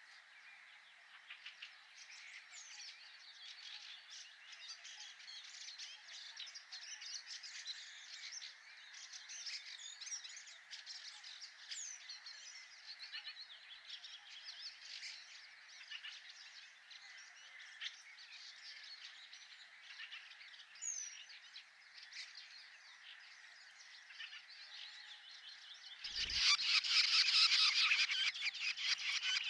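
Dense outdoor chorus of frogs calling, with birds chirping among them. About 26 seconds in there is a brief low thump, and the chorus turns much louder and thicker with rapid calls.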